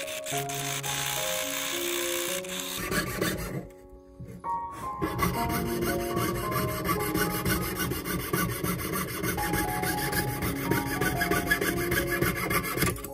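Jeweler's saw blade cutting through thin brass sheet in rapid back-and-forth strokes, with a short pause about four seconds in before the sawing resumes. Soft piano-like background music plays throughout.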